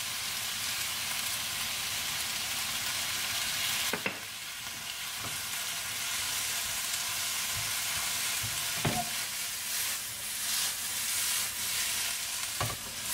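Mixed vegetables sizzling in a stainless steel pan over a gas flame just after soy sauce and sugar have been poured in, with a wooden spoon stirring them. A few sharp knocks come through the steady sizzle, about four seconds in, around nine seconds and near the end.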